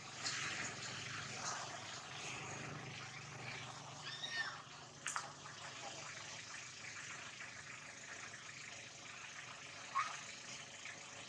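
Steady outdoor hiss with a few short calls from young macaques wrestling on the grass, the clearest a brief arching squeal about four seconds in.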